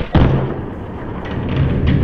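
A heavy thump just after the start, followed by low rumbling noise that dies down and swells again, with a lighter knock near the end.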